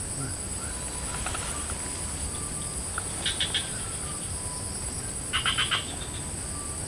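Swamp ambience: insects droning steadily at a high pitch, with two short bursts of rapid pulsed calls, likely frogs, about three and five and a half seconds in, and a few faint chirps.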